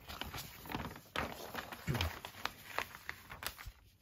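Paper posters being handled and unfolded: irregular rustling and crinkling with small taps.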